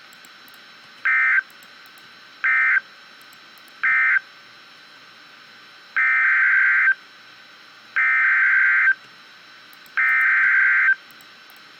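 Emergency Alert System SAME digital data bursts. First come three short bursts about a second and a half apart, the end-of-message code closing one severe thunderstorm warning. Then come three longer bursts of about a second each, two seconds apart, the header opening the next warning.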